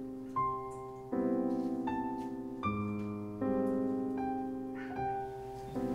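Background piano music: slow, sustained chords, a new chord struck about every second.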